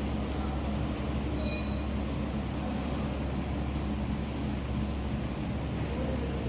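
Steady low hum of an induction melting furnace running, with a few faint, brief high tones.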